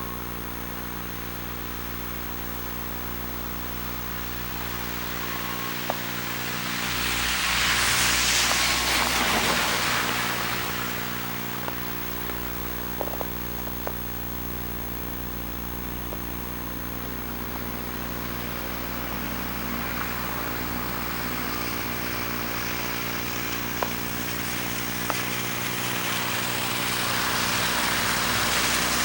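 A car passing on a snowy street, its tyres hissing, swelling and fading about eight to eleven seconds in, with another vehicle approaching near the end. Under it runs a steady electrical buzz from the Hi8 camcorder.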